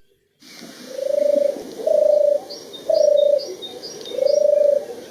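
A dove cooing: about four drawn-out coos on one steady pitch, roughly one a second, starting about a second in. Faint high chirps of small birds sound behind it.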